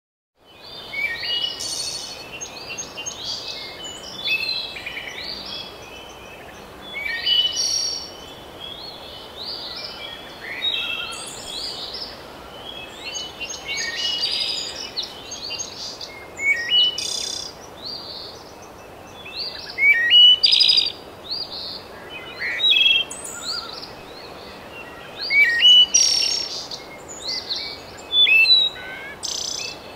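Birdsong ambience: many small birds chirping and trilling over a steady outdoor hiss, starting about half a second in.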